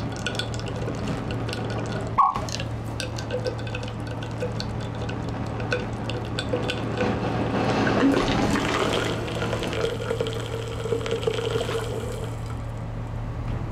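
Ethanol layered over concentrated sulfuric acid and potassium permanganate in a test tube, crackling and popping irregularly as manganese heptoxide sets the ethanol alight at the boundary of the two liquids. The crackling grows denser and louder about eight seconds in.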